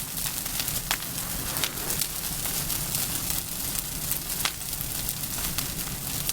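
Large bonfire of dry rubbish burning: a steady rushing hiss with frequent sharp crackles and pops.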